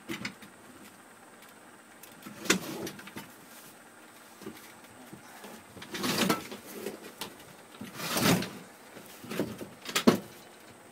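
A double bus seat's metal frame clunking and scraping as it is manhandled onto its slide rails. The rails sit on a loose, unbolted frame. There are a few separate knocks and scrapes, the loudest about six and eight seconds in.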